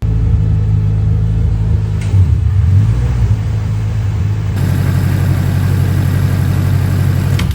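Honda Del Sol's engine running loud and steady. About halfway through it turns harsher, with a fast pulsing beat.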